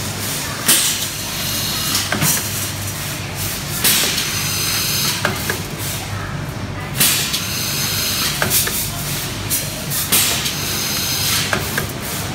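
Insert-type resistance welding machine for copper-to-aluminium tube joints cycling: short hisses of compressed air from its pneumatic clamp cylinders every second or two, with small clicks, over a steady low hum.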